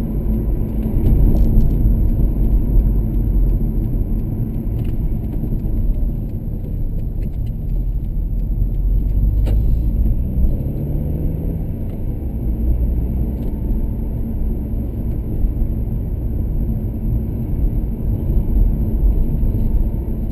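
Car interior road noise while driving: a steady low engine and tyre rumble inside the cabin, with a tone rising for a few seconds about halfway through as the engine picks up.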